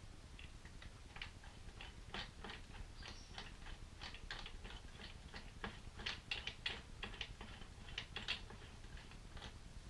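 Irregular light clicks and taps of small mounting hardware (screws, bolts and a pannier bracket) being handled and fitted, with a brief flurry of sharper clicks about six seconds in.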